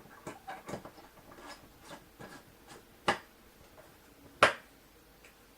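Small clicks and taps from the Jetson AGX Xavier developer kit and a screwdriver being handled during reassembly, with two sharper knocks about three and four and a half seconds in.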